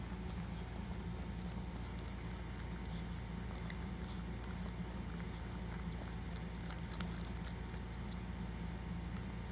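Maltese mother dog licking and chewing at her newborn puppy, working through the umbilical cord: many small wet clicks and smacks, over a steady low hum.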